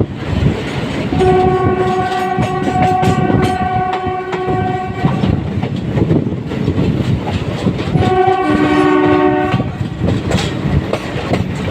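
ALCO WDM3A diesel locomotive sounding its multi-tone horn twice, a long blast of about four seconds and then a shorter one of about a second and a half, over the steady chugging of its engine and the clatter of the wheels on the rails.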